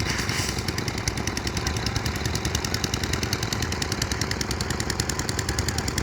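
A small engine running steadily with a rapid, even pulse of several beats a second.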